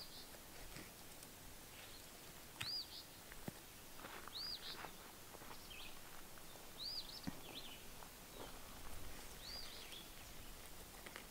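A bird singing the same short phrase over and over, about five times: a high note that rises and falls, then a brief lower note, roughly every two and a half seconds, faint against quiet outdoor background noise.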